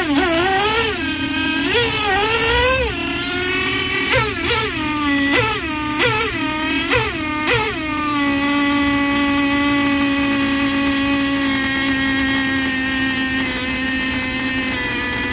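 1/10-scale nitro RC car's glow engine revved in a series of quick throttle blips, then settling into a steady idle about eight seconds in, with its wheels spinning free on a stand during tuning.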